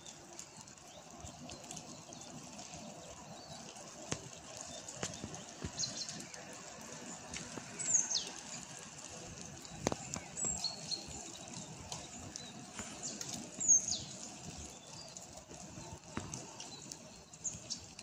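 Songbirds calling over a steady background of a small brook running with meltwater. Several high calls drop sharply in pitch, a few seconds apart, among short high chirps and scattered light clicks.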